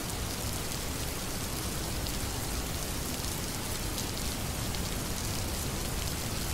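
Steady rain falling: an even hiss with a faint patter of drops, unchanging throughout.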